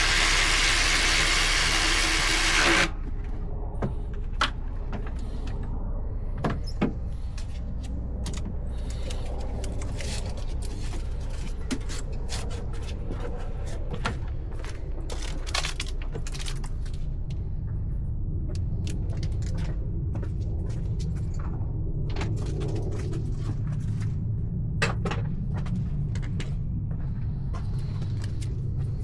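A loud hissing rush for about three seconds at the start, then scattered light metallic clicks and knocks of hand tools and parts being handled over a steady low hum.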